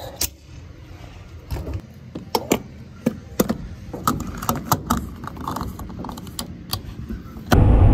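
Gas-pump nozzle handled at a car's fuel filler and the fuel cap screwed back on: a run of sharp plastic clicks and knocks. Near the end it cuts to a loud, steady low rumble of car road noise.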